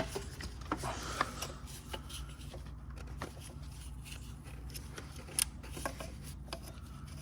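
Scattered light clicks, taps and rubbing as PCV valve and oil separator parts are handled and fitted, with a steady low hum underneath. One sharper click about five and a half seconds in.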